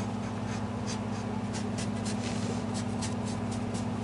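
Damp paper towel wiping wet glue squeeze-out off a guitar's lacquered side along freshly glued, taped binding: a run of quick, irregular rubbing strokes over a steady low hum.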